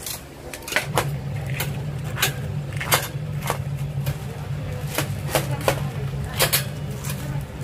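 Steel tongs and a knife clacking and scraping against a stainless wire rack and tray while whole fried chickens are moved and cut: irregular sharp clicks, one or two a second, over a steady low hum that comes in about a second in.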